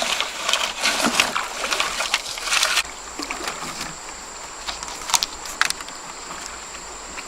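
Water splashing and sloshing for about three seconds, then quieter, with a few sharp knocks near the middle.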